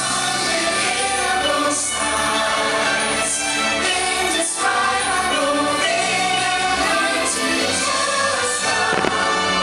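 Music: a choir singing over an orchestra.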